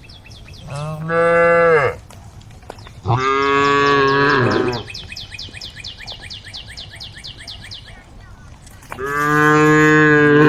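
Cows mooing: three long, low calls, the last still going at the end. Between the second and third moos a fast, high chirping trill runs in the background.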